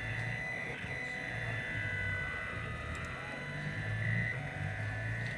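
3D printer's stepper motors whirring as the print head moves, the pitch shifting with each move.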